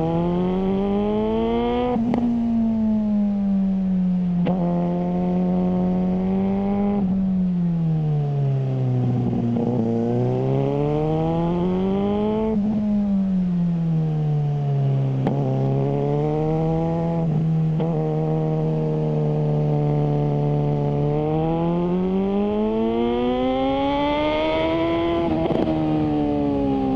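Suzuki GSR600's inline-four running through a GPR Ghost aftermarket exhaust under way. The engine note climbs under throttle, drops sharply at each gear change, holds steady, then falls away on the overrun, several times over. The highest rev climb comes near the end.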